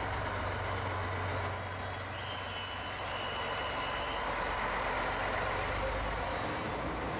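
A diesel train running with a steady low engine hum. About a second and a half in, a hiss starts with a faint high squeal over it, and both fade out about four seconds in.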